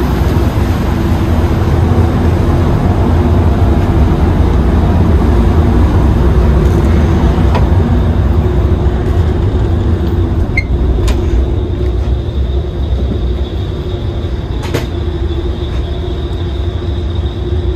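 A ferry's engines running with a steady low rumble and hum, heard on board, with a few faint clicks in the second half.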